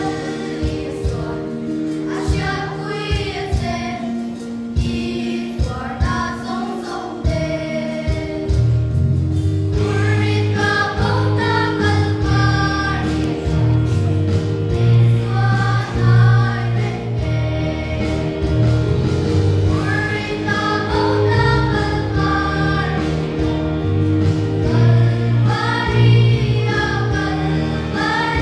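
A group of girls singing a gospel song together, over steady sustained instrumental accompaniment.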